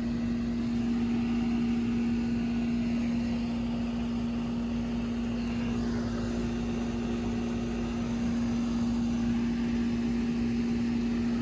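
A steady machine hum that does not change: one low tone and a fainter higher one over a low rumble.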